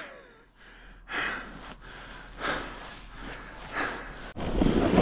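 A person breathing hard: several short, loud breaths about half a second to a second apart. Near the end a loud, steady rushing noise sets in.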